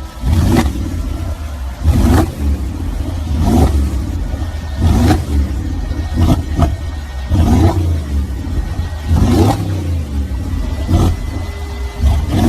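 Engine with a very loud exhaust being revved in short throttle blips, about one every second and a half. Each rev rises sharply and falls back to a rumbling idle.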